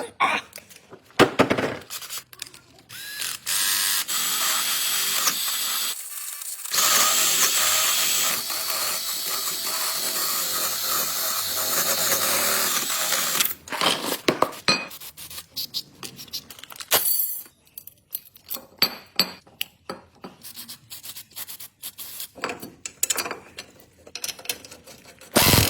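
A power tool runs steadily for about ten seconds, pausing briefly once, while parts of a car's front brake are worked on. After it stops come scattered clicks and knocks of hand tools on metal.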